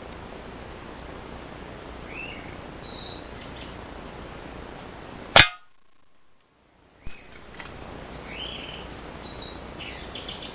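A single sharp shot from a Cometa New Fenix 400 break-barrel spring-piston air rifle about halfway through, followed about a second and a half later by a smaller click. Birds chirp now and then over a steady outdoor background.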